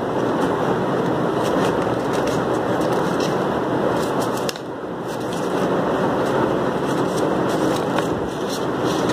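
Craft paper being folded and pressed by hand on a table, with light scattered paper crackles. Under them runs a steady, loud background noise that dips briefly about halfway through.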